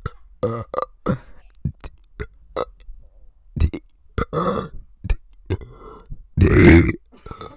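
A person burping out letters of the alphabet: a string of short belches and mouth clicks, with longer, louder belches about four and a half and six and a half seconds in, the second the loudest.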